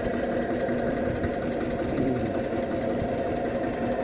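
Lanz Bulldog's single-cylinder two-stroke hot-bulb engine running steadily with a fast, even knock.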